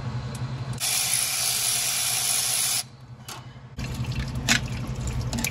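Engine coolant rushing out of a freshly loosened turbocharger coolant pipe: a steady hissing spray for about two seconds that stops abruptly, followed by a low hum and a few light clicks of a tool at the fitting.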